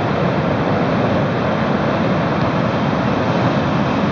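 Heavy storm surf breaking steadily on a beach, mixed with strong wind that buffets the microphone.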